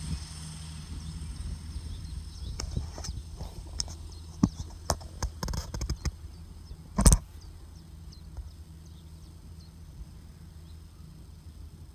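A CASE MXU 130 tractor pulling a fertiliser spreader runs steadily at a distance as a low, even hum. Over it, from a few seconds in, come a series of sharp clicks and knocks, the loudest about seven seconds in.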